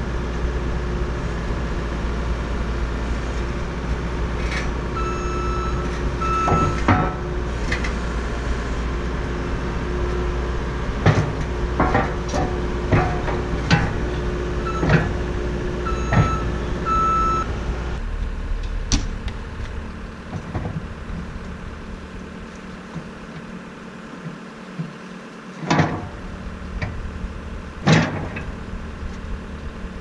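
Heavy steel quick-attach plate on a skid-steer snow blade being shifted and worked on, giving a run of sharp metal clanks and knocks, some ringing briefly. Behind them a compact track loader's engine runs with a steady low hum that drops away about two-thirds of the way through. Two more loud knocks come near the end.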